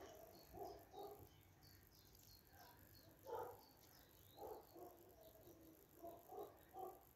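Near silence: quiet outdoor garden background with a scattering of short, faint distant animal calls, the clearest about three seconds in, and faint high chirps.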